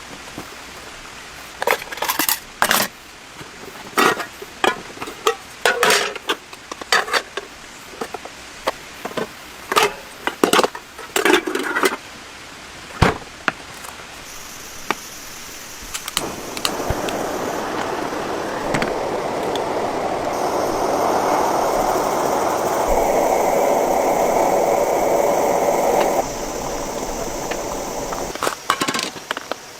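A run of knocks, clinks and scrapes of objects being handled, then a steady rushing noise that swells for about ten seconds and cuts off suddenly, followed by a few more clinks near the end.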